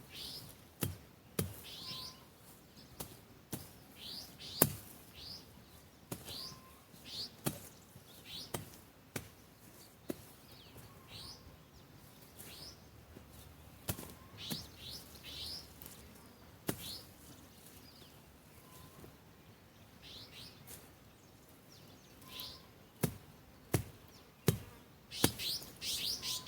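Birds chirping repeatedly in short, falling calls, with irregular sharp knocks. The loudest knock comes about four and a half seconds in, and several more come close together near the end.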